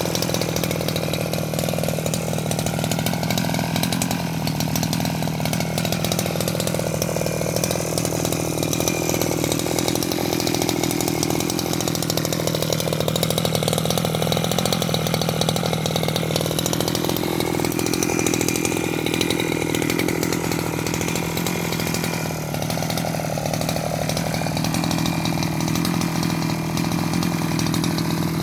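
Small two-stroke brush-cutter engine fitted to a bicycle, running continuously with a high buzz, its pitch wandering up and down a little.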